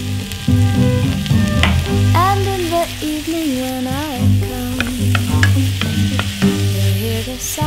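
Chinese chives and strips of dried tofu sizzling as they are stir-fried in a frying pan, with short clicks and scrapes of the stirring against the pan. Background music with held and gliding notes plays throughout.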